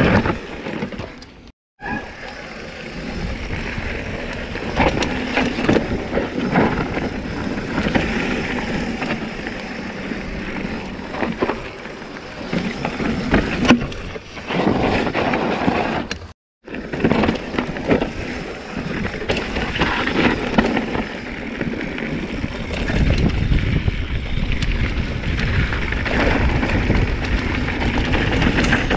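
Full-suspension mountain bike clattering down a rough downhill trail: tyres crunching over rocks and dirt, with constant knocks and rattles from the frame, chain and suspension. Wind buffets the action camera's microphone, with a heavier low rumble near the end. The sound cuts out completely twice for a split second.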